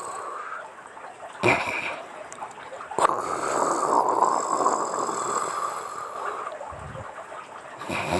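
A woman snoring in her sleep, with one long snoring breath of about three and a half seconds in the middle.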